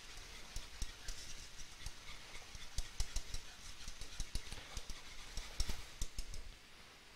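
A utensil stirring a thickening velouté sauce in a metal saucepan, giving irregular clicks and taps against the pan that stop about six and a half seconds in. A light frying sizzle runs underneath.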